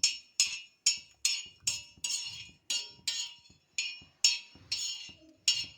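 Metal spoon clinking and scraping against a pan as cloves and black peppercorns are stirred while dry-roasting, in a steady rhythm of about two and a half strokes a second.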